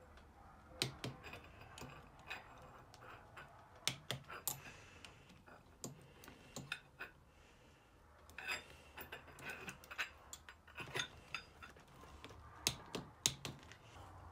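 Torque wrench ratcheting in short, irregular runs of sharp clicks as small M5 Torx screws are tightened on a turbocharger's cartridge housing, with light metal-on-metal knocks from tool and parts.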